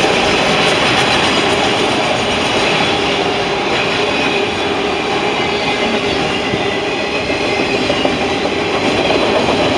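Loaded Norfolk Southern autorack freight cars rolling past at speed: a loud, steady rush and rumble of steel wheels on the rail.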